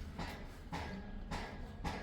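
Regular knocks, a little under two a second, over a steady low rumble.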